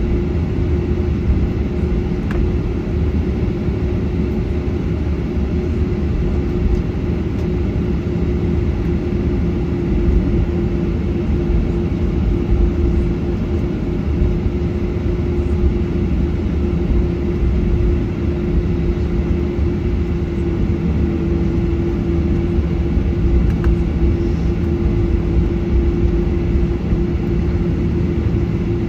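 Steady engine and airflow noise inside the cabin of a Boeing 737-800 with CFM56 turbofans, a loud even rumble with a constant hum over it.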